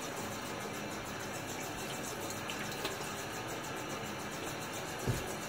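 Bathroom tap running steadily into a sink while shaving lather is rinsed off the face between passes. A single low thump comes about five seconds in.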